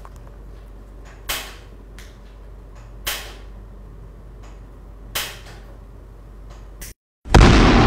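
Three short, sharp noisy sounds about two seconds apart over a low steady hum. Near the end, after a brief moment of silence, a loud explosion sound effect begins.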